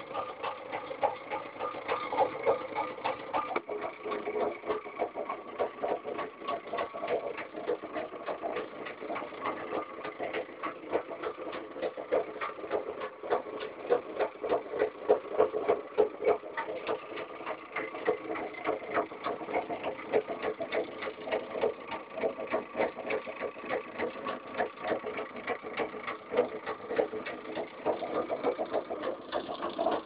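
Small reed-switch magnet motor running steadily, its rotor spinning with a rapid, even clatter of clicks.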